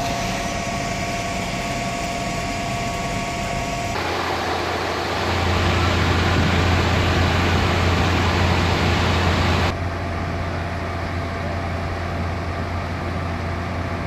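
Vehicle engines idling, a steady drone with a broad hiss. The sound changes abruptly about four seconds in and again near ten seconds, and the middle stretch is louder, with a strong low hum.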